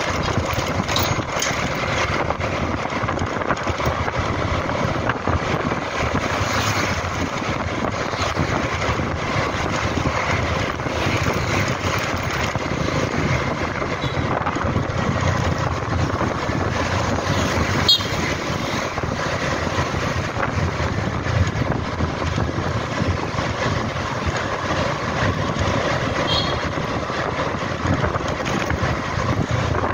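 Motor scooter riding along a street in traffic: steady engine and road noise with wind buffeting the microphone. A single sharp click about two-thirds of the way through.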